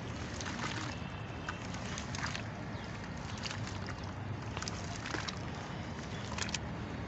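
Clumps of red sand being crunched and crumbled, with sharp irregular crunches about once a second over a steady grainy hiss.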